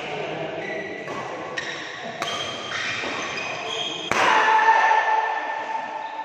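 Badminton rally: rackets striking the shuttlecock, with the loudest hit about four seconds in as an overhead smash, and shoes squeaking on the court between strokes.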